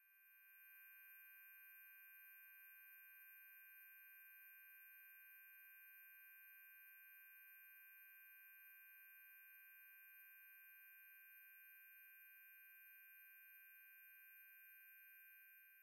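Faint, steady high-pitched ringing tone built of several held pitches with one very high whine above them, swelling in at the start and beginning to fade near the end.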